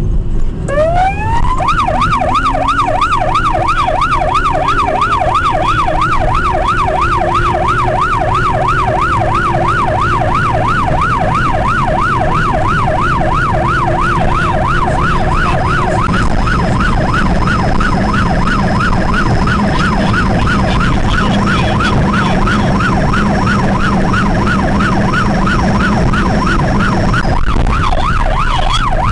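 Police car siren switching on about a second in, winding up and then yelping rapidly up and down, over the steady noise of the car's engine and tyres on the road.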